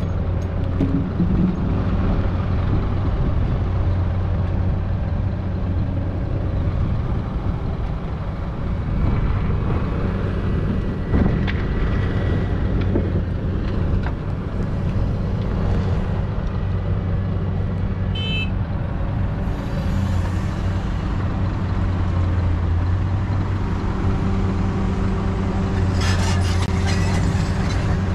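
Diesel engines of a Caterpillar hydraulic excavator and a Scania dump truck running steadily as the excavator swings and works its bucket. Partway through, a bucketful of earth and rocks drops into the truck's steel dump bed with a knock, and there is more clattering near the end.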